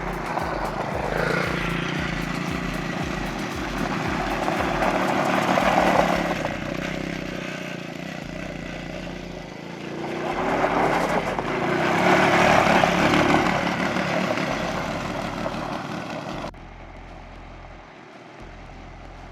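Small 110cc single-cylinder four-stroke youth ATV engines running at high revs, held much of the time against the rev limiter of their low-speed mode. They swell louder as the machines pass close, twice, then drop suddenly to a quieter, duller level near the end.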